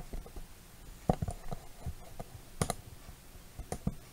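Irregular sharp clicks and knocks as a plastic shaker cup holding ice and water is handled and carried, the ice knocking inside it; the loudest come about a second in and about two and a half seconds in.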